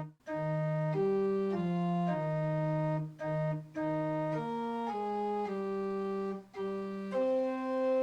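Organ playing a slow piece in held chords that change about every half second to a second, with a few short breaks between phrases.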